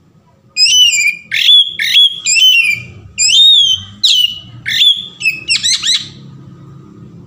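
Oriental magpie-robin singing a run of loud, clear whistled phrases with sliding notes, starting about half a second in and ending in a quick burst of notes near the six-second mark.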